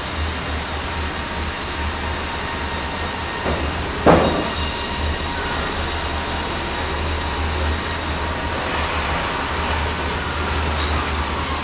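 Sawmill sawing a large red oak log: a steady low machine drone under a high, squealing metallic whine. There is a sharp clunk about four seconds in, and the high whine drops away about eight seconds in.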